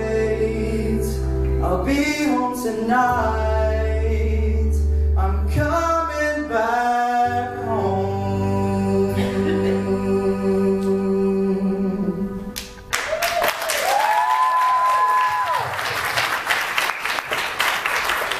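Live male vocal singing a ballad into a microphone over instrumental accompaniment, ending on a long held note. About 13 seconds in the music stops and the audience applauds, with a few cheers.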